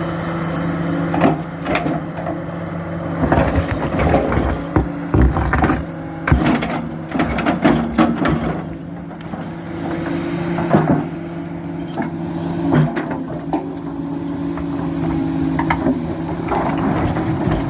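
Komatsu PC400 excavator's diesel engine running steadily while rock clatters and knocks against the steel bucket in a rapid series of sharp impacts, thinning out for a few seconds before picking up again near the end.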